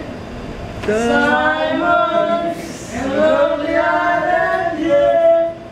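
Voices singing in long held notes.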